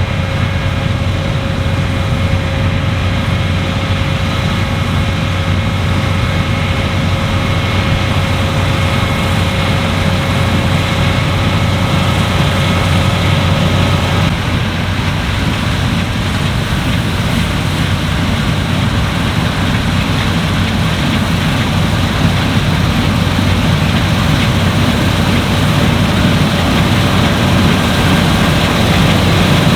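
Claas Lexion 8900 combine harvester working in wheat: a steady, loud drone of engine and threshing machinery with a deep hum. A thin mechanical whine rides on top and stops about halfway through.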